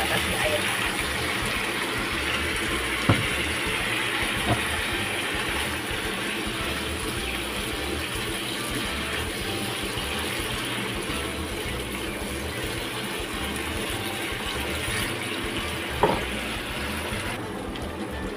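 Bitter melon and beef strips sizzling in a hot nonstick frying pan while being stir-fried, with a few sharp knocks of the spatula against the pan. Near the end the sizzle softens as the pan holds liquid and simmers.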